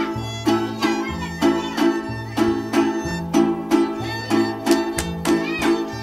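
Instrumental passage from a small string ensemble: guitars strummed in a steady rhythm of about two strokes a second, a large bass guitar changing notes about once a second, and a violin playing the melody on top.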